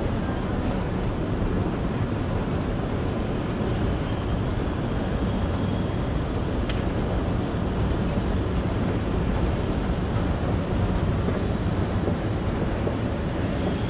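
Shopping-centre escalator running with a steady low rumble, with a single sharp click about seven seconds in.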